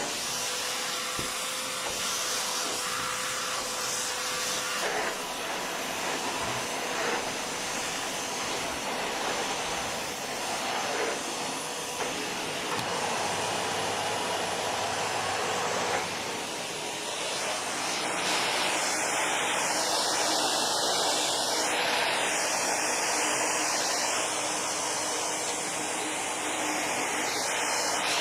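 Compact Zilan vacuum cleaner running, a steady rush of motor and airflow. About two-thirds of the way through, the airflow sound changes and grows a little louder.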